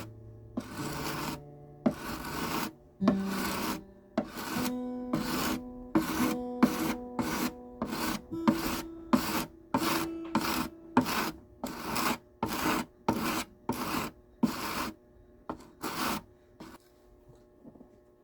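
Martin D-16 steel-string acoustic guitar strummed in a steady rhythm, about two strokes a second, moving through chords; the strumming stops a couple of seconds before the end. It is the playing demo of the guitar after its neck reset and setup.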